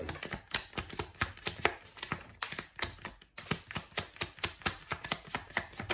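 Tarot deck being shuffled by hand: a quick run of sharp card-on-card clicks, several a second, with a couple of brief pauses.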